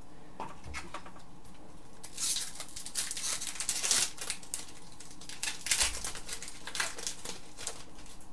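Hockey trading cards handled and flipped through by hand: a quiet first two seconds, then a run of crisp paper flicks and rustles lasting about five seconds.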